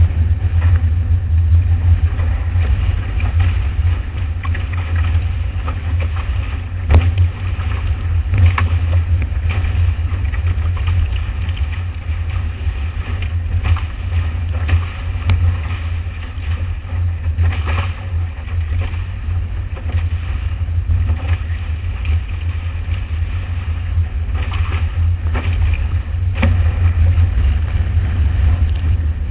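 Wind buffeting the microphone of a GoPro Hero mounted on a fast-sailing Dart 18 catamaran's hull, a heavy steady rumble over the rush of the hull through the water. A few sharp slaps cut through it.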